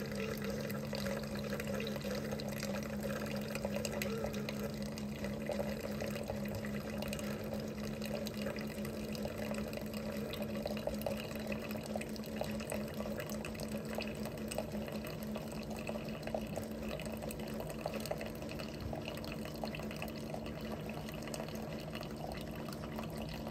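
Single-serve coffee maker brewing into a glass mason jar: its pump hums steadily while coffee streams and drips into the filling jar.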